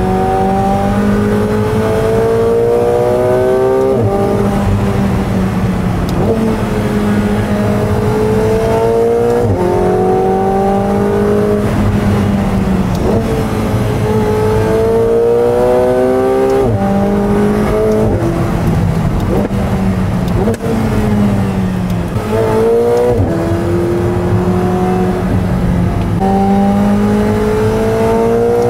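McLaren 720S twin-turbo V8 through a Valvetronic Designs valved titanium exhaust on stock downpipes, driven hard. The engine note climbs in pitch for a few seconds at a time and then drops sharply, about half a dozen times, as at gear changes.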